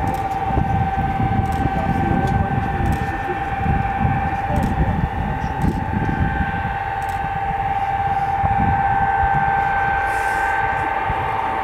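Tupolev Tu-154 trijet's engines running at low power as the airliner rolls along the ground: a steady high whine with a fainter higher tone above it, over a low uneven rumble.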